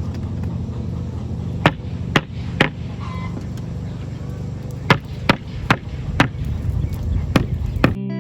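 Hammer striking wood, about ten sharp blows in uneven groups, over a steady low engine-like hum.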